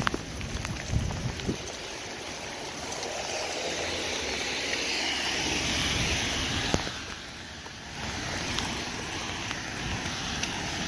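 Steady rain falling on a wet street. Around the middle, a louder wash of tyre hiss from a car driving through the wet road swells and then fades.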